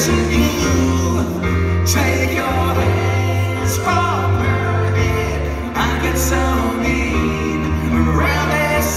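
Live pop-rock band playing: a male voice singing over electric keyboards and a steady electric bass line.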